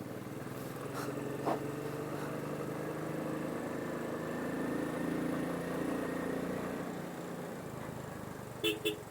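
Royal Enfield Bullet 500's single-cylinder engine running steadily while riding, its note swelling a little midway. Two short blips sound near the end.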